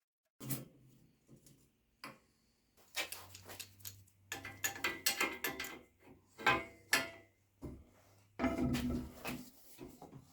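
Irregular clicks, knocks and clinks of tools and metal bike parts being handled while the bike is taken apart, over a faint steady hum.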